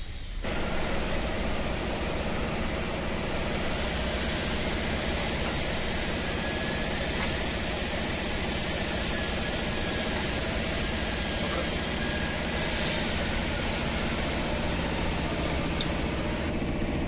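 A steady machine noise: a constant low hum with a hiss over it.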